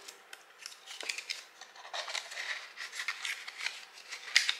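Paper banknotes and a cash envelope being handled and stuffed: a run of short, crisp rustles and crinkles.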